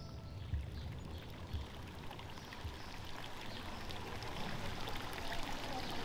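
Small stream running and splashing over rocks, a steady rush of water.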